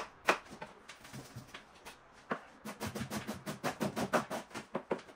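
Kitchen knife chopping an onion on a plastic cutting board. A few separate knocks of the blade on the board come first, then a quick, even run of chopping at about five strokes a second from about halfway through.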